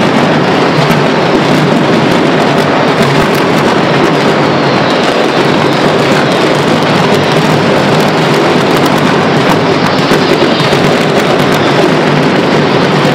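Mascletà firecrackers going off in a dense, unbroken barrage, the individual bangs running together into one continuous loud crackle.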